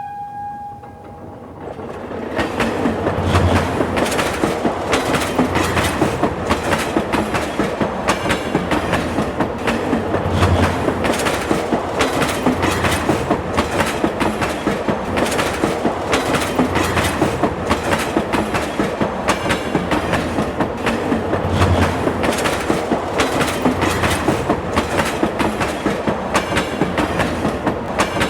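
A train horn's steady note dies away in the first moment, then a train rolls past with a rapid, steady clatter of wheels over the rail joints.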